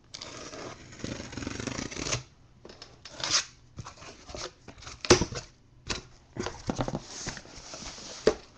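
A blade slitting open a sealed cardboard case, a long tearing cut, then the cardboard flaps being pulled open and handled, with scrapes and a sharp knock about five seconds in.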